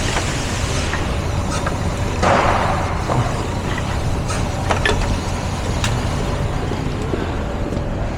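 A vehicle engine running steadily with a low rumble. There is a short hissing swell about two seconds in and a few light clicks.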